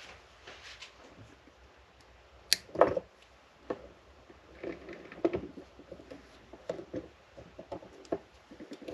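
Light clicks and taps of small parts being handled on an O gauge model locomotive as its motor is taken out, with one sharp click about two and a half seconds in.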